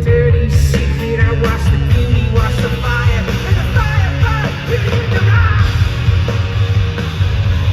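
Loud live heavy rock band playing, with yelled and sung vocals over a dense low end.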